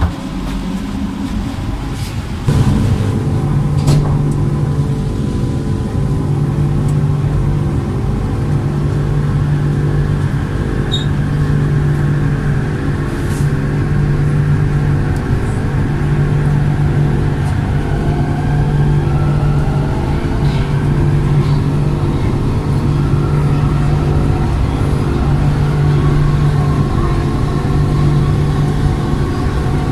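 Kelana Jaya Line LRT train's linear-induction traction drive heard from inside the car. A steady low hum with a grid of pitched tones comes in abruptly about two and a half seconds in, then higher whines glide up in pitch as the train gathers speed.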